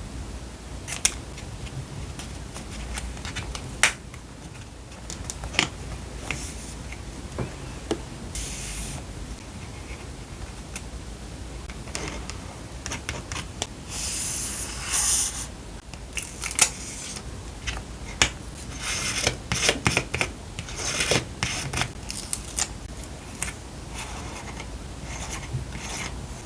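Paper crafting sounds: scissors snipping through paper, with paper rubbing and rustling and small clicks against the desk.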